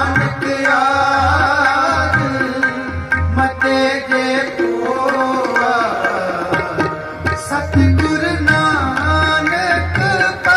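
Sikh kirtan music: harmoniums sustaining a melody, a tabla keeping a rhythm with deep bass-drum strokes, and a voice singing over them.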